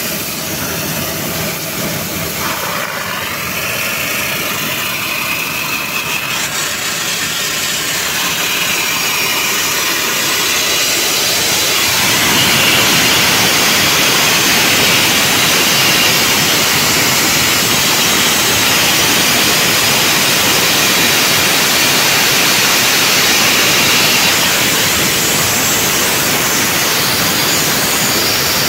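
Locomotive centrifugal dust collector (CDC) drain cock blowing down: a loud, steady hiss of pressurised discharge spraying out of the open drain pipe, growing a little stronger about twelve seconds in.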